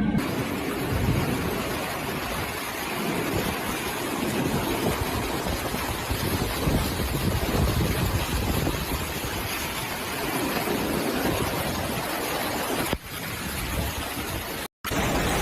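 Typhoon-driven surf and strong wind: loud rushing noise that swells and ebbs every few seconds as waves surge, with wind buffeting the microphone. It breaks off twice near the end at cuts.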